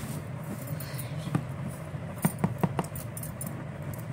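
Scattered light clicks and scratches of a cardboard box and scissors being handled, with a quick run of sharper ticks a little past halfway.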